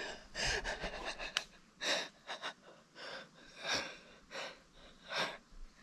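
A man breathing hard in quick breaths, roughly one every half second to a second: he is out of breath from running up the trail.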